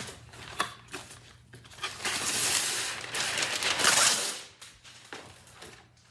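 Parchment paper rustling and crinkling as a sheet is handled and pulled from its box, loudest for about two seconds from two seconds in, with a few light paper clicks around it.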